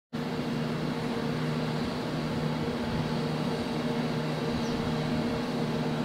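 Steady mechanical hum of the large transport ship Osumi's machinery as she sails past, a few low steady tones over an even rushing noise.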